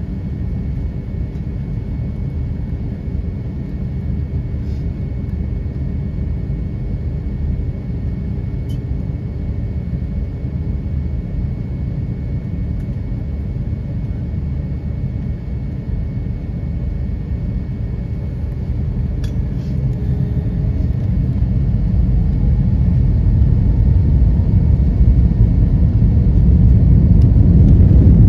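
Cabin noise of an Airbus A321 on the ground: a steady low rumble with a faint high whine. About twenty seconds in, the engines spool up for takeoff, the rumble growing louder under a rising whine.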